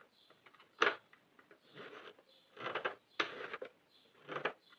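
Several short clicks and rustles from hands working the plastic needles and yarn of a Sentro 48 circular knitting machine, one sharp click about a second in and a cluster of handling noises near the middle.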